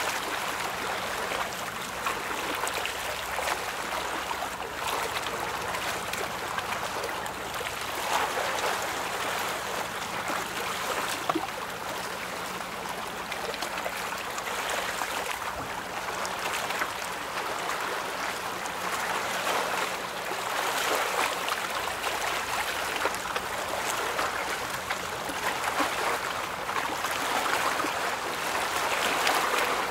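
Rushing, splashing water that swells and eases in waves, with a faint steady low hum underneath.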